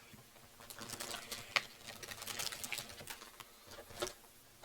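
Close-up chewing of a crunchy maple leaf cream cookie: soft, irregular crackles and a few sharper clicks.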